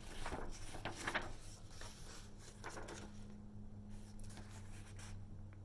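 Faint rustling and a few light taps of paper color cards being put down and picked up at a table, over a low steady hum.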